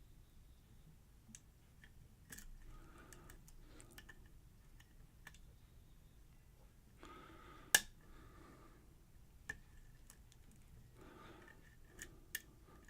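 Lock pick and tension wrench working the pins of a pin-tumbler lock during single-pin picking: faint scraping with scattered small clicks, one louder click about eight seconds in.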